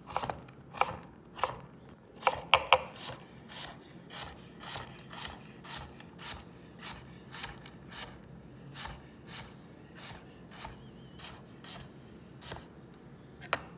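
Chef's knife dicing carrot strips on a wooden cutting board: a steady run of crisp chops, about two a second, with a few louder knocks a couple of seconds in and again near the end.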